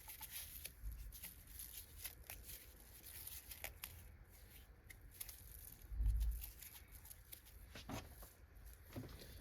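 Hair and threads being pulled and torn off a vacuum agitator's bristles by hand: faint scattered tearing, scraping and small clicks, with one low thump about six seconds in.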